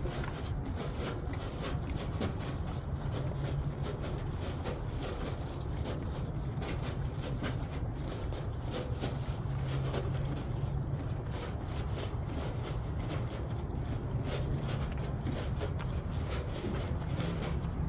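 Horse chewing hay, a steady run of small crunching strokes over a constant low rumble.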